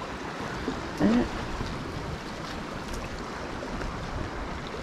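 Shallow seawater lapping gently along a rocky shoreline, a steady wash. A short spoken sound comes about a second in.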